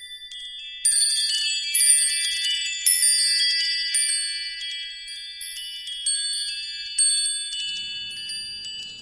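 Sparkling chime sound effect of an animated logo intro: many high bell-like tones struck together in clusters, first about a second in and again near three, six and seven seconds, each ringing on and fading away.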